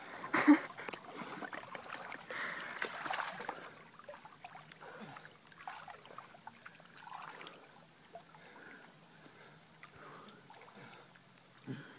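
Faint lake water lapping and splashing, with a sharp loud sound about half a second in and a stretch of rushing noise between about two and three and a half seconds in.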